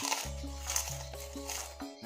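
Background music: a slow, held bass note under short melodic notes that change pitch in steps.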